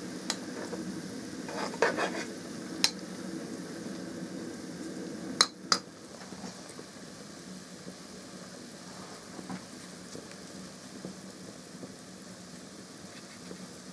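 Vinegar with Pernambuco-wood shavings and alum simmering in a bowl on a gas cooker: a steady low rushing, with a few sharp clinks of a utensil against the bowl in the first six seconds, after which it goes a little quieter.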